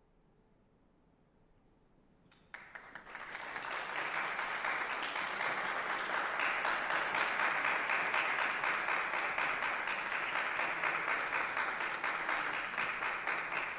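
Near silence for about two and a half seconds, then an audience breaks into applause, building over a second or so and continuing steadily to the end.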